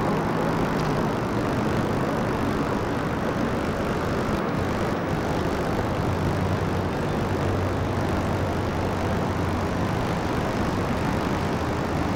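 Boat under way: a steady low engine drone under a constant rush of wind and water.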